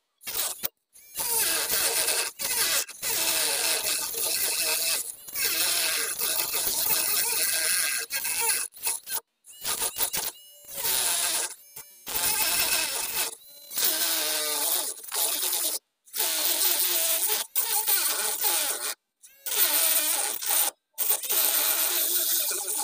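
Small cordless rotary tool spinning a mini circular saw disc as it cuts a groove into PVC pipe: a high motor whine with a rasping hiss, its pitch wavering as the blade bites, broken by abrupt short gaps several times.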